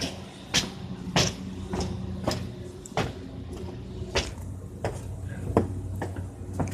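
Footsteps on a rooftop: a short knock roughly every half-second to second, over a steady low hum.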